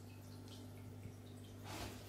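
Quiet room tone: a steady low hum with a few faint soft ticks, and a brief rustling hiss near the end.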